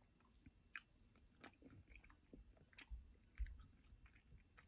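Faint chewing of a mouthful of crispy chicken sandwich, with a few short soft mouth clicks scattered through it and a low thump about three and a half seconds in.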